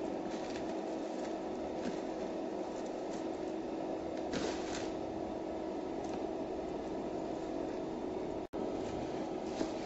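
Induction cooktop running: a steady fan hum with a low held tone. A few soft rustles of wet glutinous rice sliding from a plastic basin into the wok come about four and a half seconds in and again near the end.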